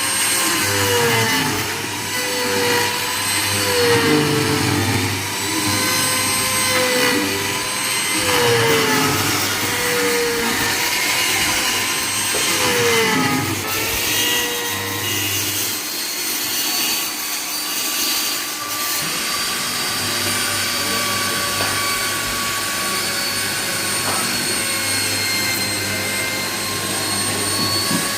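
Electric power tool motor whining as it works wood, its pitch sagging and recovering again and again under load for roughly the first half, then running at a steady pitch.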